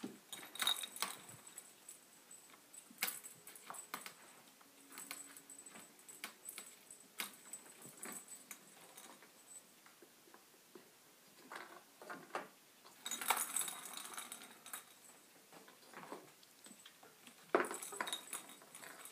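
Two kittens batting at a plastic ball-in-track cat toy. It gives scattered light clicks and knocks as paws hit the plastic and the ball rattles round the track, with a longer spell of rattling about two-thirds of the way through.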